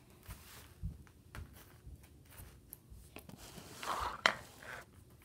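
Handling noises: scattered light knocks and rustles as things are moved about, with a louder rustle and one sharp click about four seconds in.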